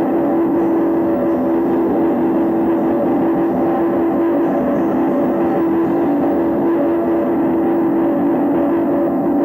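Improvised noise music: a steady, loud drone of held tones over a dense wash of noise, with no clear beat.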